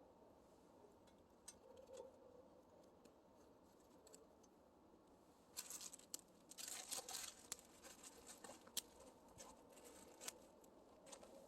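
Faint crackling and rustling, with scattered small clicks and a denser burst of crackles lasting about two and a half seconds, starting about five and a half seconds in.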